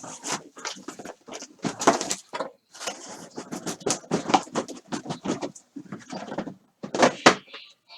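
Sealed cardboard case of card boxes being opened and handled: a dense run of quick rustles, scrapes and taps, pausing briefly about six seconds in.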